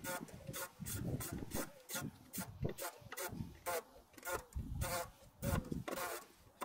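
Ratchet wrench being worked back and forth in short rasping strokes, about two a second, as a bolt is run down before torquing.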